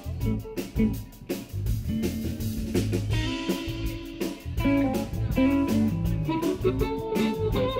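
Live blues band playing an instrumental passage: electric guitar lines over drums and bass, with steady drum hits keeping the beat.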